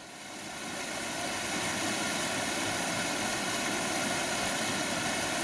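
A small mountain stream rushing and splashing over rocks: a steady noise that swells up over the first second or so and then holds level.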